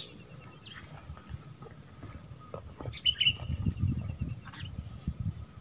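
Steady high-pitched drone of insects, with a bird chirping now and then, most clearly about three seconds in, and some low rustling and knocks in the second half.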